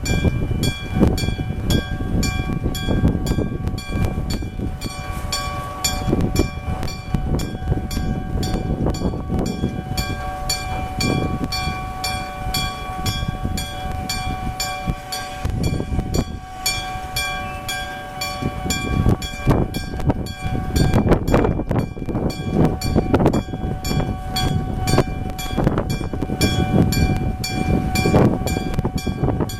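Level-crossing warning bell struck in a steady rhythm, its ringing tones held between strikes, while a train rumbles past.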